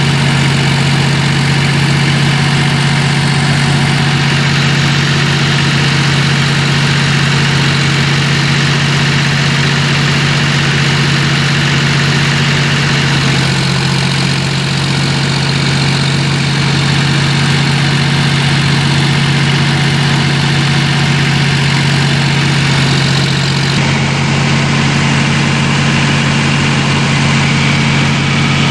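John Deere 5050D tractor's three-cylinder diesel engine running steadily while powering a wheat thresher, with a constant low hum and a broad mechanical whirr over it.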